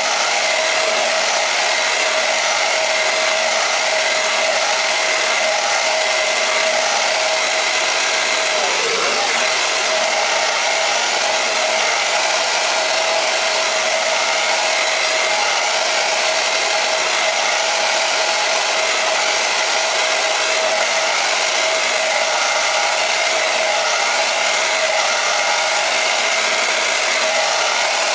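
Handheld hair dryer running steadily at a constant setting: a rush of air with a steady motor whine.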